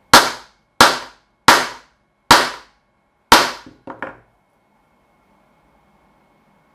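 Small hammer striking a nearly solid 3D-printed PLA part on a table, five sharp hard knocks about three-quarters of a second to a second apart, then a couple of lighter knocks as the hammer is set down around four seconds in.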